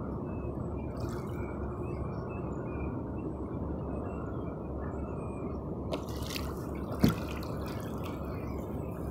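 Sea water lapping and dripping against the plastic hull of a Perception Scooter sit-on-top kayak, over a steady low rush, with a brief louder knock about seven seconds in.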